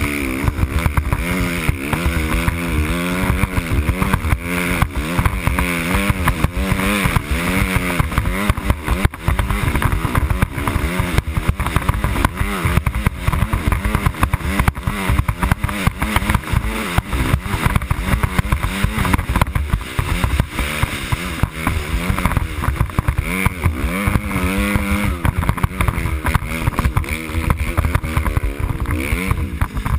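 Dirt bike engine running hard through snow, its pitch rising and falling constantly as the rider works the throttle.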